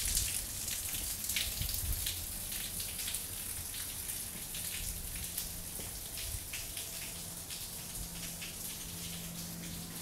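Small waterfall trickling down a rock face and splashing onto stone, a steady hiss of water with many quick patters of drops.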